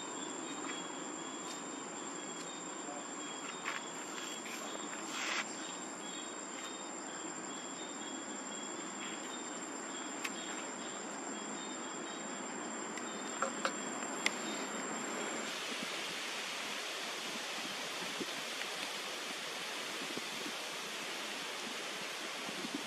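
Steady high-pitched insect buzzing, with a few soft clicks. About two-thirds of the way through it cuts off suddenly, leaving an even hiss.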